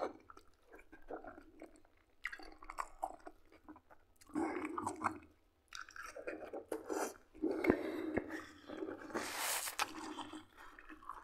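Close-up chewing of a mouthful of buckwheat and liver cutlets: soft, irregular wet mouth sounds, with a few faint clicks.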